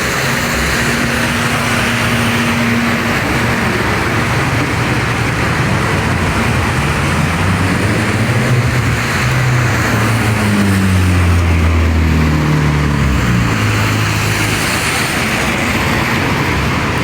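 Road traffic in the rain: a steady hiss of wet tyres and rain, with a vehicle's engine drawing near and passing, loudest about eleven to thirteen seconds in.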